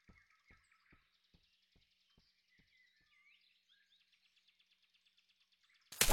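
Faint cartoon forest ambience: small birds chirping, with soft low thumps about two a second that fade out over the first few seconds. Near the end a sudden loud burst of sound lasting under a second.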